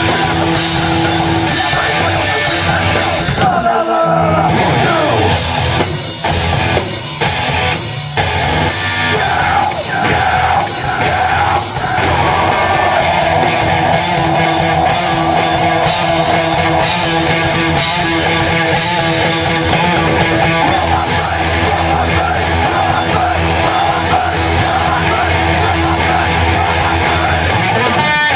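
Live rock band playing loud, with shouted vocals. About four seconds in the cymbals drop out. A run of stop-start hits follows before the full band comes back in.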